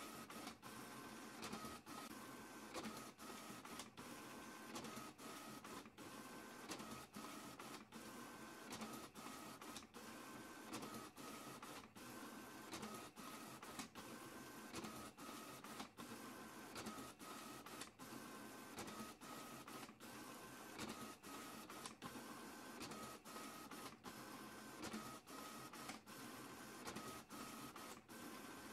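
A printer printing pages, a steady mechanical whirr that briefly dips about once a second, with faint tones coming and going.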